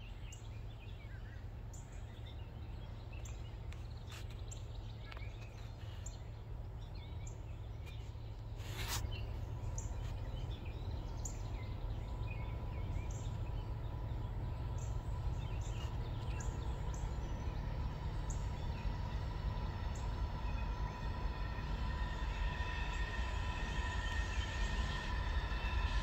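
Norfolk Southern freight train approaching in the distance: a low rumble that grows slowly louder, with a steady whine of several tones building over the last few seconds. Birds chirp now and then, and there is one sharp click about nine seconds in.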